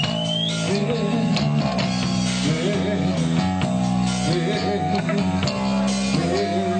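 Live rock band playing: electric guitar, bass and drum kit, with bending guitar notes over held low chords.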